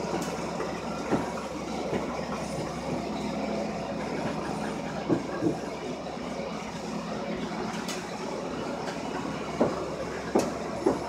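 ATSF #2926, a 4-8-4 Northern steam locomotive, rolling slowly along the track over a steady hiss, with a few sharp clanks and knocks from its running gear and wheels at irregular intervals.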